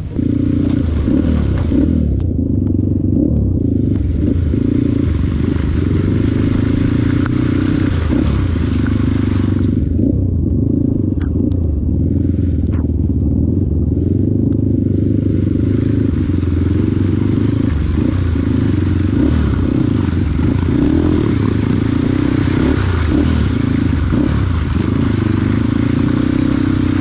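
Enduro dirt bike engine running steadily at fairly even revs, with a higher hiss over it that drops out twice.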